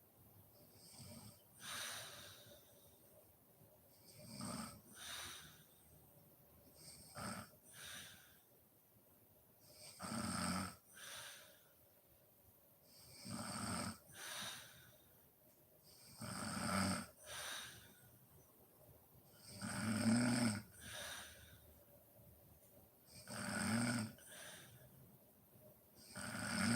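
A woman snoring in her sleep. Each snore is a low buzzing breath followed by a shorter, softer breath, repeating about every three seconds and growing louder after the first few breaths.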